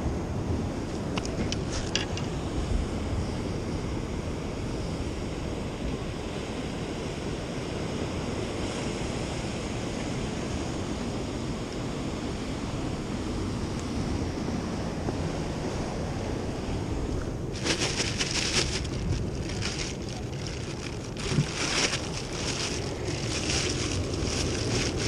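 Steady surf with wind buffeting the microphone. In the last seven seconds or so a plastic bag rustles and crinkles repeatedly as it is handled.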